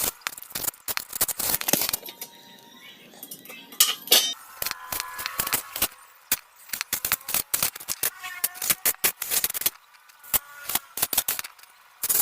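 Quick, irregular sharp clicks and taps of metal against metal, with faint brief tones here and there.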